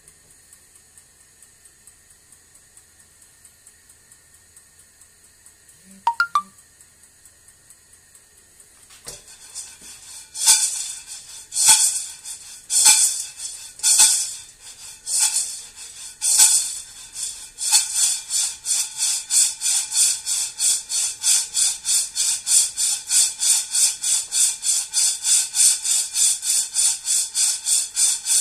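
Coffee beans rattling and sliding in a ceramic-lined frying pan as it is shaken and tossed over a gas burner during roasting: a few irregular shakes at first, then a quick steady rhythm of about three shakes a second. A brief clink comes about six seconds in, before the shaking starts.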